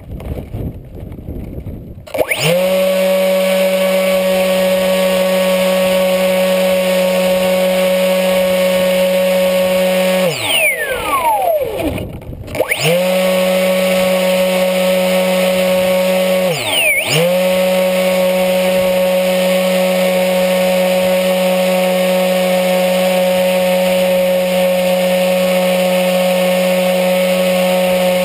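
Electric pusher motor of a HobbyKing Bixler RC plane spinning an APC 6x4E propeller, heard from a camera mounted on the plane. At first there is only wind rush. About two seconds in the motor spins up to a steady high whine. About ten seconds in the throttle is cut and the pitch falls away; the motor spins back up a couple of seconds later, dips briefly once more, then holds steady.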